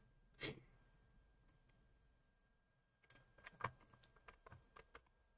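Faint computer keystrokes and clicks: about a dozen short, sharp taps close together over the last two seconds, after one soft, short noise about half a second in.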